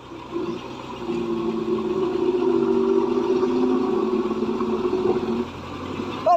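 Motor vehicle engine running hard at steady high revs for about five seconds, then dropping off.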